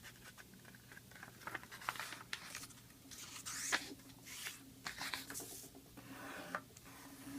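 A sheet of paper being folded lengthwise and creased by hand: faint, irregular rustles and sharp swishes as fingers run along the fold.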